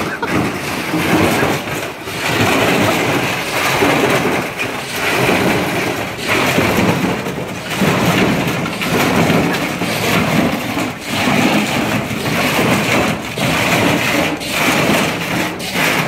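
Washing machine spinning with a large stone in its drum, banging and rattling loudly as it tips over and shakes itself apart on concrete. The noise is continuous, surging and dipping irregularly.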